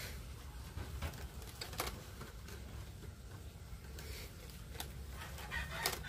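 A few light clicks and scrapes from pliers twisting stranded copper wire splices in a plastic junction box. Chickens call faintly in the background near the end.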